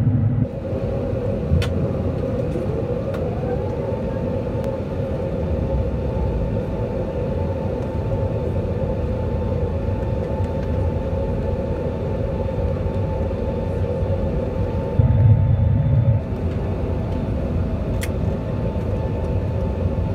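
Steady cabin roar of an Airbus A380 on approach, heard from a window seat over the wing: engine and airflow noise with a steady hum. About three seconds in a whine rises in pitch and then holds, and around fifteen seconds a brief, louder low rumble comes and goes.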